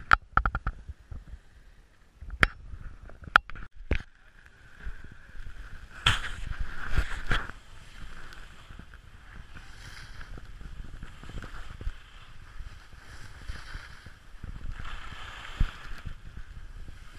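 Skis hissing and scraping over packed snow, strongest about six to seven seconds in, over a steady rush of wind on the camera. In the first few seconds, a quick run of sharp clicks is followed by three single knocks.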